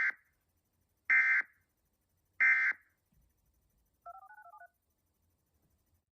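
Emergency Alert System end-of-message signal: short bursts of warbling digital data tones (SAME, Specific Area Message Encoding), about a second apart, sent to close the alert. About four seconds in there is a faint, brief fluttering two-tone beep.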